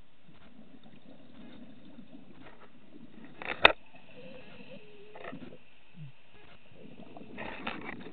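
Underwater sound of scuba diving: low gurgling from exhaled regulator bubbles, with a sharp knock about three and a half seconds in, the loudest sound, and another burst of bubbling near the end.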